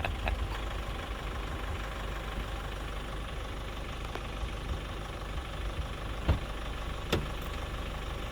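Nissan pickup's engine running steadily with a low rumble, with two short knocks about six and seven seconds in.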